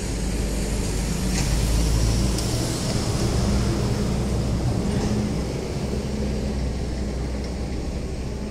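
Low engine rumble of a motor vehicle, swelling over the first two seconds or so and then slowly fading, with a couple of faint clicks.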